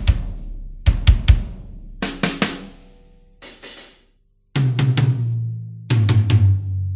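Sampled metal drum kit from the MetalHeads EZX library for EZdrummer 3 playing short fills: quick groups of kick and snare hits with cymbals ringing out. About three and a half seconds in there is a brief hiss-like cymbal swell and a short silence. Then the kit comes back heavier, with a steady low tone under the hits.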